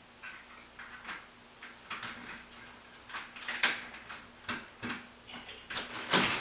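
Someone at the front door working its lock and handle from outside: an irregular run of clicks and metallic rattles that grows louder, with the sharpest clicks about halfway through and just before the end.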